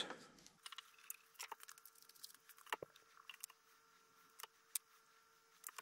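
Near silence: faint, scattered light clicks and taps of small hand tools being handled, over a faint steady hum.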